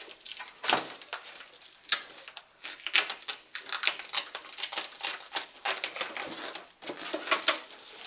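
Cardboard carton being slit open with a Leatherman multi-tool blade and handled: an irregular run of short scratching, scraping and rustling strokes of cardboard.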